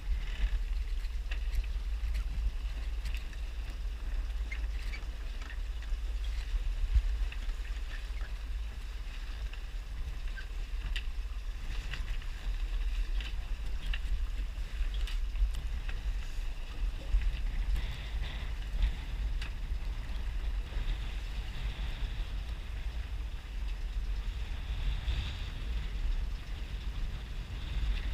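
Wind buffeting the microphone aboard a small sailboat, a steady low rumble, with scattered light clicks and rustles as the mainsail is gathered and bundled at the mast.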